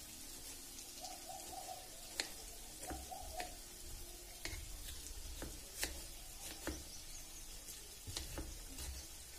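Kitchen knife chopping a tomato on a wooden chopping board: irregular sharp knocks of the blade on the wood, about a dozen, over a faint steady sizzle of frying oil.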